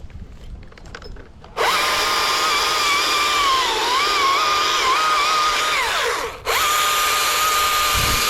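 Cordless electric chainsaw starting up about a second and a half in with a high motor whine that dips and wavers as it bites into wood. It is let off and winds down about five seconds later, then is squeezed on again at full speed.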